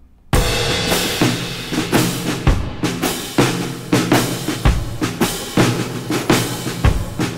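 Background music with a steady drum beat, starting suddenly about a third of a second in.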